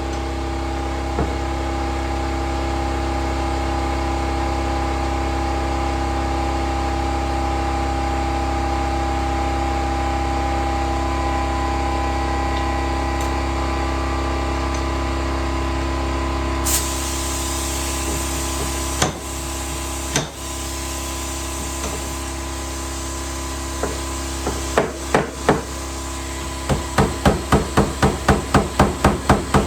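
A steady machine hum, joined by a hiss about halfway through. Near the end come a couple of sharp knocks, then a fast run of hammer taps, about four a second, on a car door's sheet-metal panel during dent repair.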